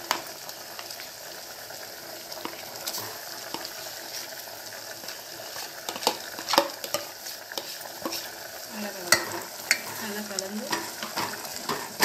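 Kurma gravy bubbling and spitting on the stove while mashed potato is scraped off a steel spoon into it and stirred in, with the spoon and ladle clinking and knocking against the bowl and metal pot, the knocks sharper and more frequent from about six seconds in.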